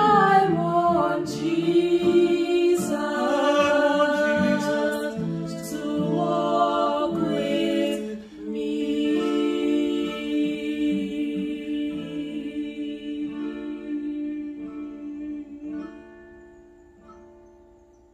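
Two women singing to an acoustic guitar accompaniment; the singing stops about eight seconds in, and the guitar plays on alone before fading out near the end.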